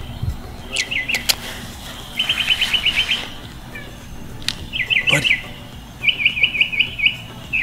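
A songbird singing: short runs of quick, falling chirps, about five runs with brief pauses between. A few sharp clicks fall between the runs.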